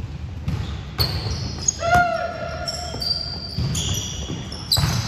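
Volleyball being played on an indoor court. There are about three sharp ball hits, and short, high-pitched rubber shoe squeaks on the court floor between them.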